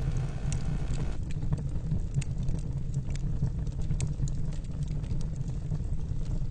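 Fire crackling, with irregular sharp pops over a low steady rumble; a hiss in the upper range drops away about a second in.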